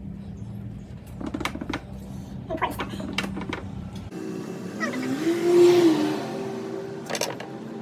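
A few short metallic clicks and clinks of tools and parts being handled, in two quick clusters. About four seconds in, the sound changes abruptly to background music with held tones and a rising-then-falling glide.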